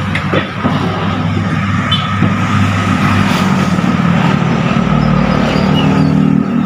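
Motor vehicle engine running steadily with a low hum, its pitch shifting slightly about five seconds in.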